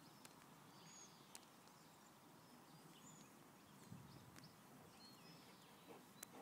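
Near silence: quiet outdoor ambience with a few faint, short, high bird chirps in the distance.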